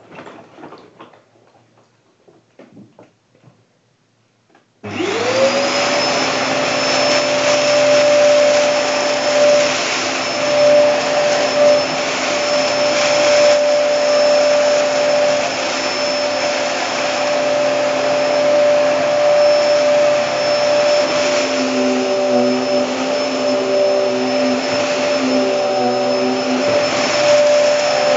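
Hoover Hurricane upright vacuum cleaner switched on about five seconds in after some faint handling clicks. Its motor spins up quickly to a steady whine and then runs at full power.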